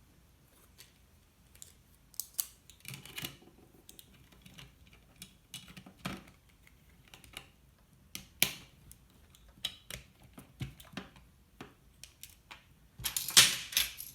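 Clicks, taps and scrapes of a plastic digital multimeter case being handled and its battery cover fitted back on after the two AAA batteries go in. Scattered single clicks throughout, with a louder burst of scraping and rattling near the end.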